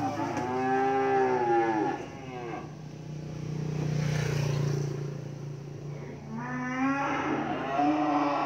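Cream French-breed calves mooing: two long calls, one at the start and another beginning about six seconds in, with a lower, steady drone between them.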